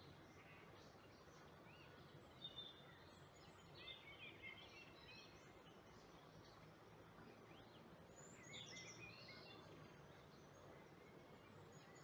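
Faint bird chirps in short scattered bursts, strongest about four seconds in and again near nine seconds, over a low steady background hiss.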